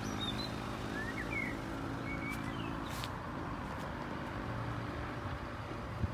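Steady low engine rumble, as of a vehicle idling, with a few short bird chirps about a second and two seconds in and a couple of light clicks.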